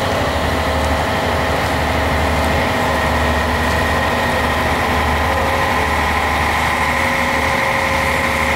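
Heavy diesel engine of a crawler crane running steadily under load, a low hum with a steady high whine over it.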